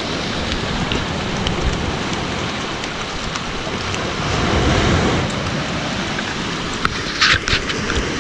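Shallow river water rushing over pebbles into the sea, with surf breaking on the shore and wind on the microphone, in a steady wash of noise. Near the end come a few short, sharp noises.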